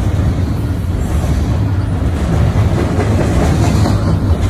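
Double-stack container train cars rolling past at close range: a steady, loud low rumble of wheels on rail.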